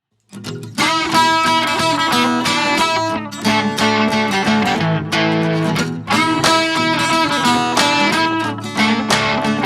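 Background music led by a plucked guitar, starting a moment in.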